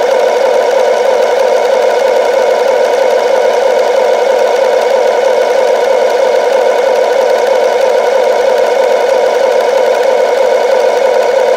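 An RC excavator's built-in sound module playing a simulated diesel engine idle through its small speaker. It is a steady, loud, buzzy engine rumble with a fast, even flutter.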